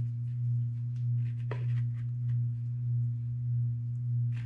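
A steady low electrical hum, slowly wavering in level, with faint rustles and clicks of cord being knotted through a plastic bucket and one brief squeak about a second and a half in.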